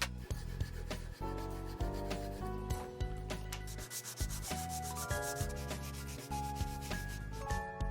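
Wood being sanded, a rasping rub against the board, over background music with melodic plucked notes.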